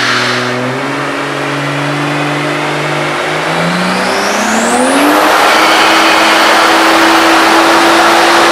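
Toyota Supra MKIV's tuned 600 whp straight-six pulling hard on a chassis dyno. Its pitch holds, then climbs for a couple of seconds and settles high and loud, with a high whistle rising along with it.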